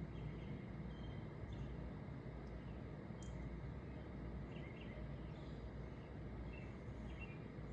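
Steady low outdoor background noise with a few faint, short bird chirps scattered through it; no thunderclap.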